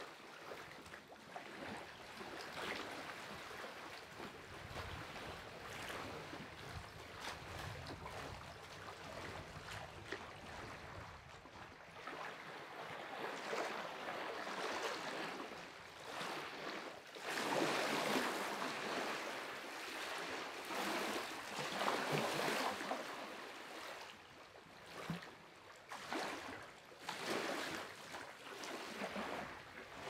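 Small lake waves lapping at the shore in irregular washes, with a louder stretch of surges about halfway through and shorter washes near the end.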